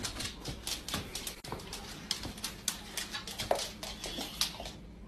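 A dog's claws clicking on a hardwood floor as it moves about, a run of quick irregular taps that stops near the end.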